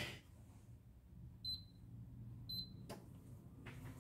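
Two short, high electronic beeps about a second apart from a glass-top hob's touch controls as the hob is set. A single sharp click follows shortly after.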